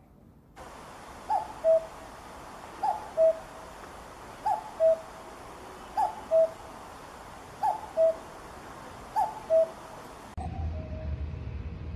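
Common cuckoo calling "cuck-oo" six times, about one and a half seconds apart, each a higher note dropping to a lower one. Near the end the recording changes abruptly to one with a low rumble underneath.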